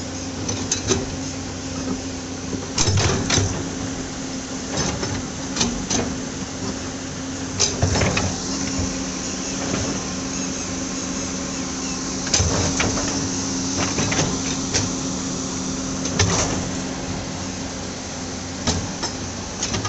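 Hydraulic excavator's diesel engine running steadily while its bucket is dragged over loose soil and stones to level a road bed, with scattered knocks and clatters of rubble and steel.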